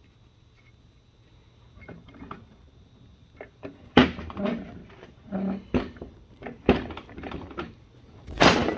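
Steel-on-steel knocks and clanks as a long bar levers the seized rear brake drum and hub off a 1984 John Deere 318's axle: several sharp knocks from about four seconds in, then a louder, longer clatter near the end as the drum comes free.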